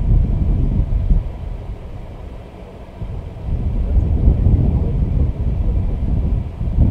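Wind buffeting the microphone: a low, uneven rumble that eases off about a second in and picks up again about three seconds in.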